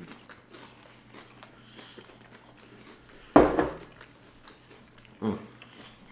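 Close-miked eating: soft chewing and wet mouth clicks from people eating fried fish sandwiches. There is a sudden loud sound about three seconds in and a shorter one a couple of seconds later.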